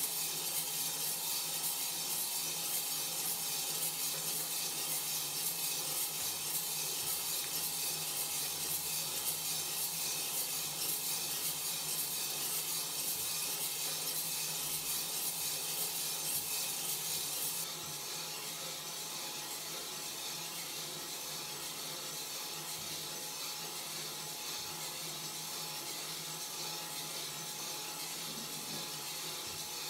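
Steady rasping hiss of coffee beans tumbling in the rotating stainless drum of a Kaldi Mini roaster over a gas burner, with a faint steady hum underneath. The sound drops abruptly in level about 18 seconds in.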